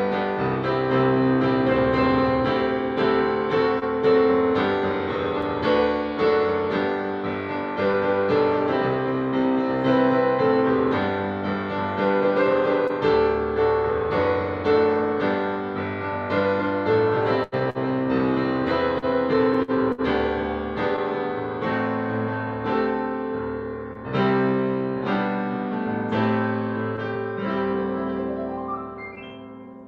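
Solo piano played in full chords, dying away on a last held chord near the end.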